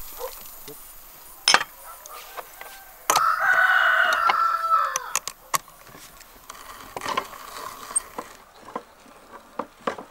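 A rooster crowing once, a long pitched call of about two seconds in the middle, among scattered sharp knocks and clicks.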